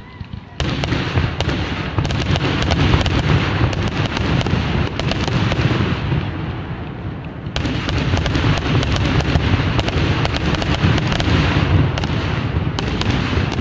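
Fireworks display: a dense, continuous barrage of booms and crackling from bursting aerial shells. It starts suddenly about half a second in, eases a little around the middle and builds again.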